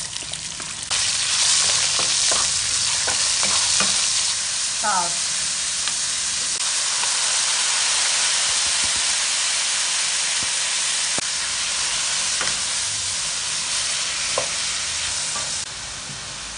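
Sliced pork and then cut chives sizzling in hot oil in a wok, stirred with a wooden spatula that scrapes against the pan. The steady sizzle grows louder about a second in, with a few scraping strokes in the first seconds, and drops back near the end.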